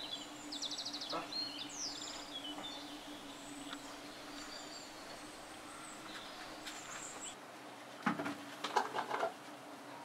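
A honeybee colony humming steadily as the hive is disturbed and bees fly off the comb, with bird chirps over it. A brief louder burst of sound comes about eight seconds in.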